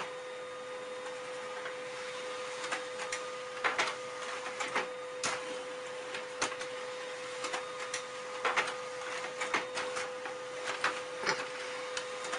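A steady mechanical hum with a clear tone, overlaid by irregular sharp clicks and knocks.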